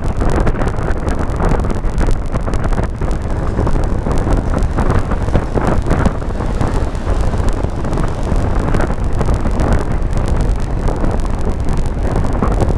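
A car driving at speed: steady wind rumble on the microphone over tyre and road noise, with no break or change.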